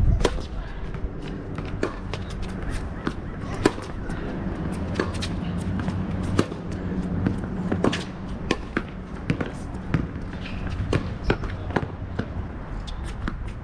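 Tennis groundstroke rally on a hard court: sharp pops of racket strings hitting the ball and the ball bouncing, many times over, with a steady low rumble beneath.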